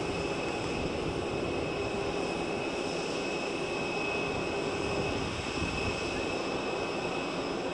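Steady turbine whine and hum of an Airbus A320neo airliner standing at the gate, a sustained high tone over an even rushing noise.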